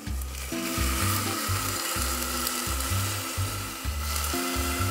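Beef stock pouring in a steady stream from a stainless steel bowl into a stainless steel pot of beef in red wine, a continuous splashing hiss. Background music with low bass notes plays underneath.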